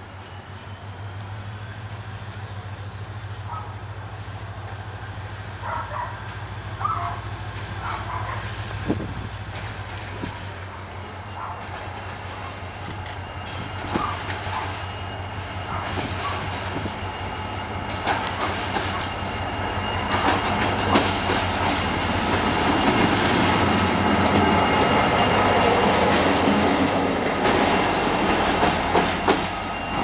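A diesel-hauled passenger train rolls through the station, over a steady low diesel engine rumble. Its wheels clack over the rail joints, more often and louder in the second half, with a thin high-pitched wheel squeal running alongside.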